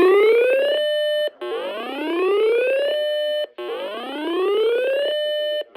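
Electronic whooping alert tone of an emergency warning broadcast. Each whoop rises in pitch for about a second and a half, holds briefly, then cuts off, repeating about every two seconds, three times.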